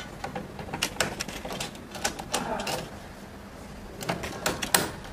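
Screwdriver working the terminal screw of a three-phase isolator as a wire is tightened in: irregular sharp clicks of metal and plastic, with a quick run of louder clicks near the end.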